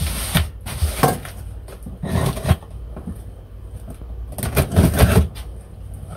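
A knife slitting packing tape on a cardboard box: several irregular scraping strokes with the crackle and rustle of the cardboard, and the flaps being worked open near the end.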